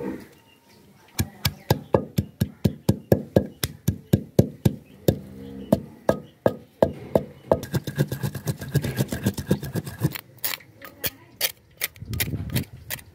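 Green chilli, coriander, cumin and salt being pounded on a flat stone grinding slab: a fast run of knocks, about four a second, as stone strikes stone through the wet greens. Near the end come sharper, brighter clicks.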